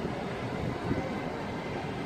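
Steady outdoor city ambience with a low, uneven rumble.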